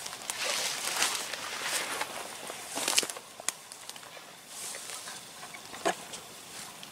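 Footsteps and rustling through vegetation, uneven and irregular, with a few sharp clicks.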